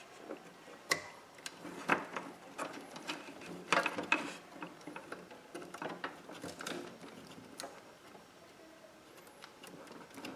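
Irregular light clicks and small knocks of cable connectors being handled and pushed onto a hard drive's sockets, dying down near the end.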